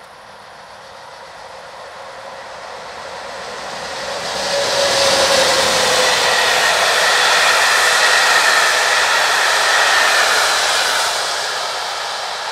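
Passenger train hauled by an electric locomotive passing close by at speed. The rushing noise swells as it approaches, stays loud for about six seconds with a faint high whine over it, then fades as the coaches go by.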